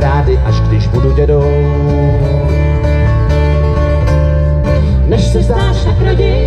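Live band playing a song on acoustic and electric guitars, with a heavy low end.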